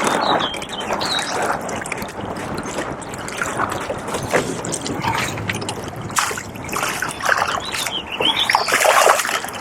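Water trickling and splashing in a fast-running flooded river, with scattered small knocks and rustles.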